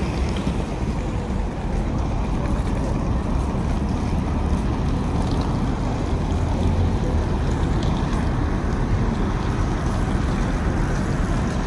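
Several hard-wheeled suitcases rolling over rough pavement: a continuous grainy rumble with no break.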